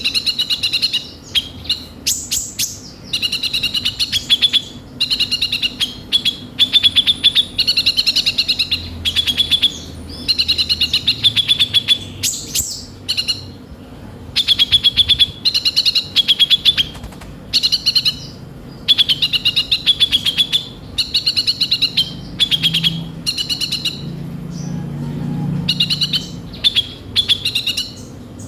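A sunbird of the kind Indonesian keepers call kolibri ninja sings a harsh, chattering song. Its phrases are rapid trilled bursts of about a second each, repeated with short pauses, with a few higher squeaky notes mixed in.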